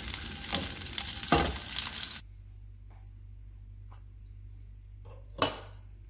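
Plant-based meatballs sizzling in oil in a frying pan, a dense crackling sizzle that cuts off abruptly about two seconds in. After that a faint low hum with a few light ticks and one sharper click near the end.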